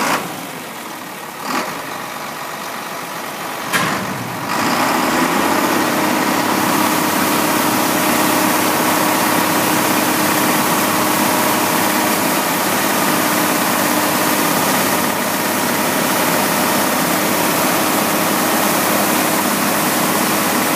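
Tractor engine running a grain cart's unloading auger, with a few sharp knocks early on. About four and a half seconds in, a heavy, steady rush of water starts pouring from the auger spout and splashing onto wet concrete, over the steady hum of the engine and auger.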